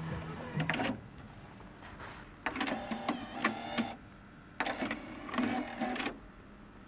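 Akai GX-R60EX cassette deck: playback stops about a second in. Then the deck's mechanism whirs twice, each time for about a second and a half, as the cassette door opens and then closes.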